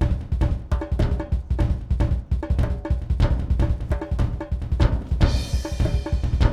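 Background music driven by a drum kit: a fast, steady beat of bass drum and snare hits, with a brighter cymbal-like wash coming in near the end.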